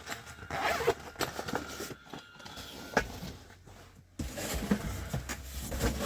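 Zipper of a small fabric tool bag being pulled open, with scraping and clicks as the contents are handled.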